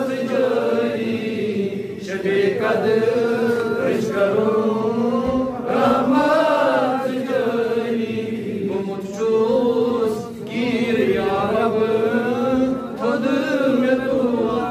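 A solo man's voice chanting a munajaat, a devotional supplication, in a long melodic line of held, wavering notes with brief breaks for breath.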